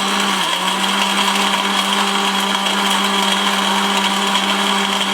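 1600-watt mixer grinder with a steel drive coupling running at full speed, grinding dry turmeric into powder: a steady motor whine under a loud, dense grinding rush.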